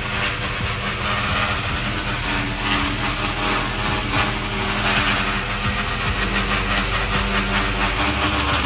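Small quadcopter with Archimedes-screw rotors in flight, its electric motors and spinning screw rotors giving a steady buzz with several held tones.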